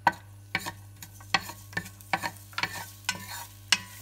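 Wooden spatula knocking and scraping against an enamel pot, irregularly about two to three times a second, as minced garlic is stirred in hot oil, with the garlic frying faintly underneath.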